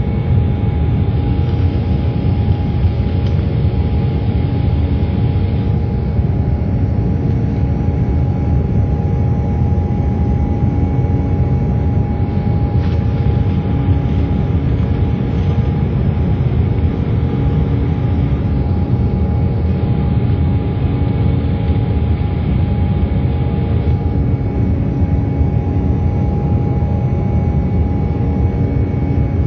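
Jet airliner's turbofan engines heard from inside the passenger cabin during the climb after takeoff: a steady low rumble with a few held tones over it.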